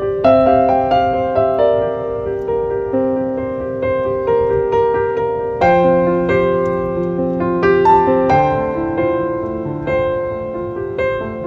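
Background piano music: a melody of struck notes over held chords, with a change of chord about a quarter second in and again about halfway through.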